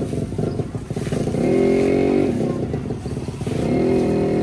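Motorcycle engine running close by, revving up twice: its pitch rises and holds about a second and a half in, drops back, then rises again near the end.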